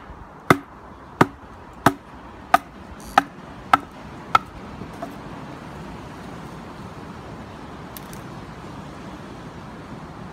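Wooden baton striking the spine of a TOPS Bushcraft Kukri to drive it down through a log of hard, heavily seasoned timber: about seven sharp knocks at a steady beat of roughly one and a half per second. The knocks stop about four and a half seconds in, leaving only a steady background hiss.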